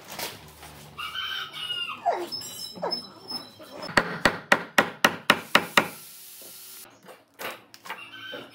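A steel chisel chipping hardened epoxy off the rim of a round tabletop: a quick run of about ten sharp taps, some five a second, in the middle. A chicken calls about a second in and again near the end.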